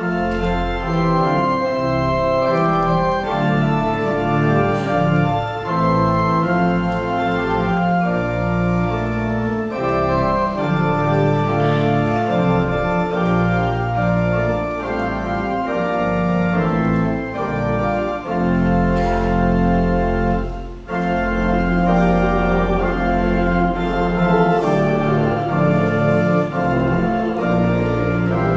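Church organ playing, with full sustained chords over deep bass notes that change every second or so. It starts suddenly.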